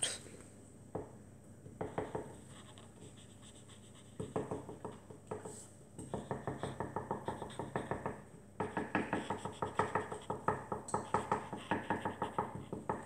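Felt-tip marker scratching on paper while colouring in small hearts. A few scattered strokes at first, then quick back-and-forth strokes, several a second, steadier and louder from about halfway through.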